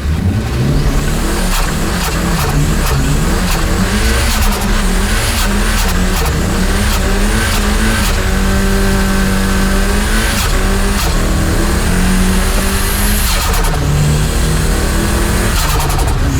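Car engine revving repeatedly, its pitch rising and falling as the throttle is worked, with scattered sharp crackles over the top.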